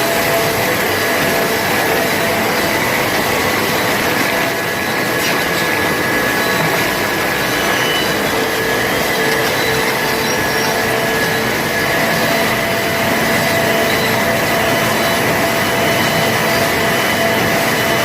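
Sawmill machinery running: a steady, dense mechanical noise with a few constant faint whines.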